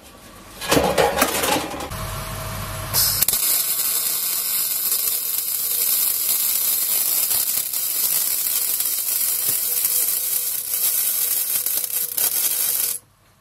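ESAB C200i MIG welder arc running on thin stainless steel sheet with stainless wire, set to the lowest power. It makes a steady crackling hiss that starts about three seconds in and cuts off sharply near the end. A few knocks of handling come just before it.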